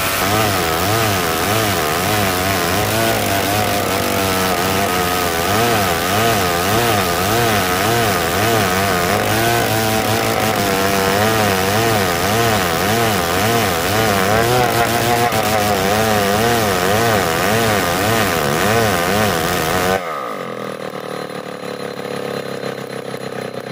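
Old chainsaw at full throttle rip-cutting hard marsawa batu timber lengthwise, its engine note wavering up and down as the bar works through the dense wood. Near the end the throttle is released and the engine drops suddenly to idle.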